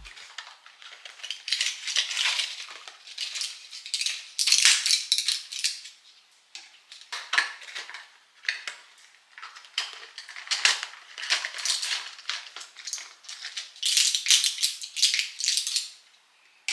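Irregular scraping, rustling and light clinking in bursts with short pauses, like dishes and cutlery being handled in a kitchen.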